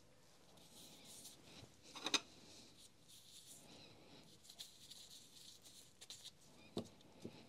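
Faint handling noises: gloved, greasy hands rustling and working metal rotary-hammer parts, with one sharp knock about two seconds in and a couple of lighter knocks near the end.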